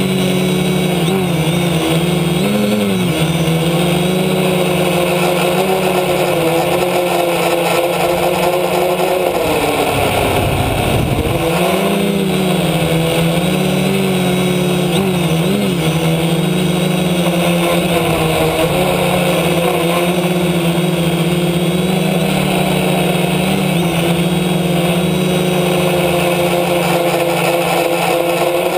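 F450 Aerosky quadcopter's four brushless motors and propellers buzzing steadily, heard close up from the camera mounted on the drone. The pitch wavers up and down with throttle corrections. About ten seconds in, the tone drops away for a couple of seconds, leaving a rushing noise, then picks up again.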